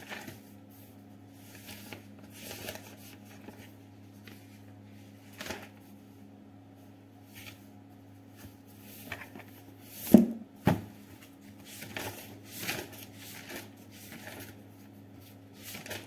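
Pages of a thick book being flipped by hand: a run of short paper rustles and swishes, with two louder thumps about ten seconds in, over a faint steady low hum.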